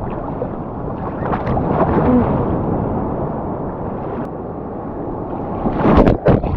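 Calm sea water sloshing, with wind noise on the microphone. Near the end come a few loud knocks on the microphone.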